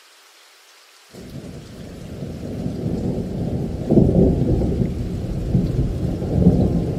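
Thunder rumbling over rain. A faint rain hiss at first, then about a second in a deep rumble sets in, builds to its loudest around four seconds and rolls on.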